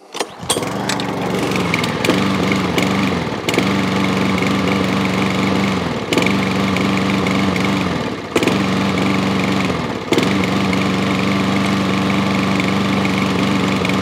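Webb lawnmower's 139cc overhead-valve petrol engine catches on the pull and runs unevenly, sagging in speed about four times and picking up again, then dying away at the end. It is kept going only by repeatedly pumping the primer bulb, and the mechanic puts the fault down to a blocked or fouled carburettor.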